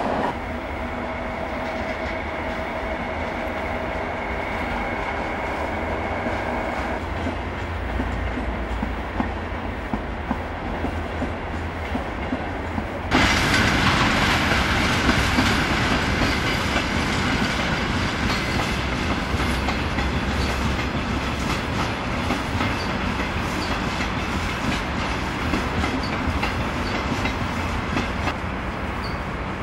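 Train moving on the station tracks, its wheels clattering over the rail joints. Steady tones sound over it at first. About halfway through, the sound abruptly becomes louder and noisier.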